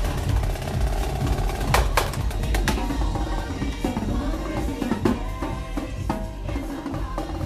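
Live drumming on marching drums: quick snare strokes and rim hits over a steady low beat, with a cluster of sharp strikes about two seconds in.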